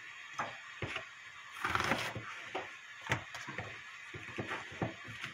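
Kitchen knife cutting an onion on a plastic cutting board: a few sharp knife taps on the board, the loudest about three seconds in, with a brief rustle of the onion being handled around two seconds in.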